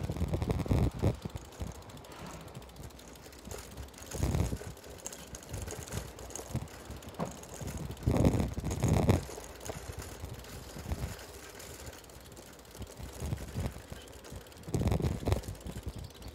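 Wind buffeting the microphone in irregular gusts of low rumble, several times, over the faint hush of a quiet street.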